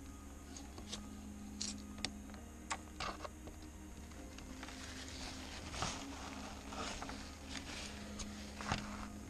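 Quiet handling sounds of a plastic epoxy syringe being pressed into small holes in a fibreglass glider wing's leading edge: a few sharp clicks, then soft paper-towel rustling as the excess is wiped off over the second half.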